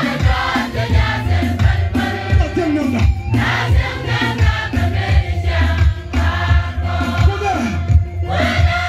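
A large group of voices singing together, choir-style, over a steady low hum.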